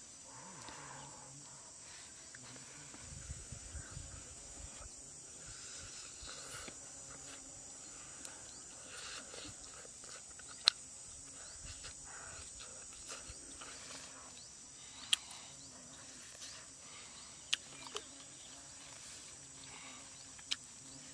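Steady high-pitched drone of insects, with a handful of sharp clicks standing out over it, the loudest about halfway through.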